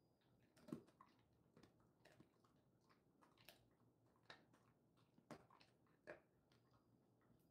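A Jindo-mix dog crunching and chewing a dried elephant-fish tail treat: faint, irregular crisp crunches. A sharper bite comes just under a second in, and others come around four, five and six seconds in.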